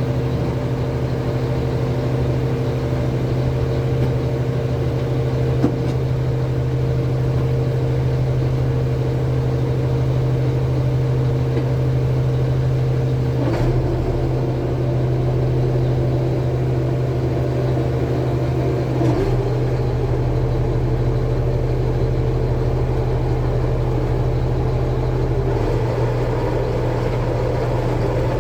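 MAN diesel engine of a K-700 tractor running steadily. Its note shifts slightly about halfway through and again a few seconds later.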